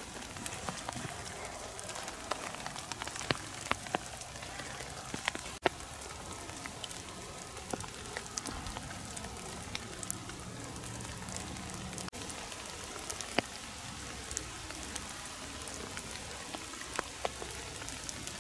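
Steady light rain falling, with many single drops ticking sharply and irregularly close by.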